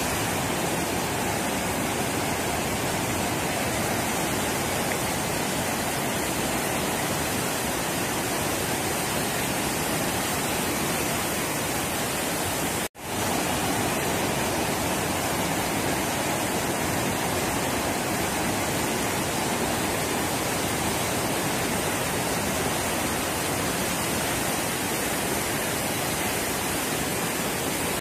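Steady rushing roar of floodwater pouring from the Three Gorges Dam's spillway outlets and churning in the river below. The sound drops out for a split second about halfway through, then carries on as before.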